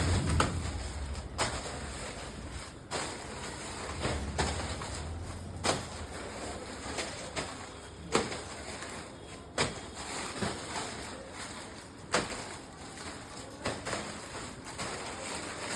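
Handling noises from a parcel being unpacked: irregular clicks, knocks and rustling over a steady background hiss.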